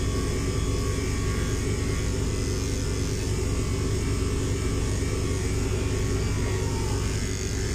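Electric pet clipper fitted with a 5FC blade running steadily as it shaves a Persian cat's long coat, a constant motor hum.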